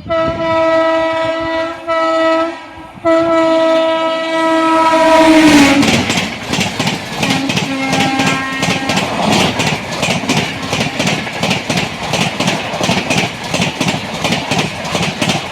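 Passing express train's horn sounding in two long blasts, its pitch dropping as the train goes by at speed, followed by the fast rhythmic clatter of the coaches' wheels over the rail joints.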